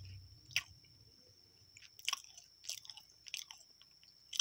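Crunchy extruded corn snack coated in chocolate being chewed close to the microphone: a series of sharp, irregular crunches.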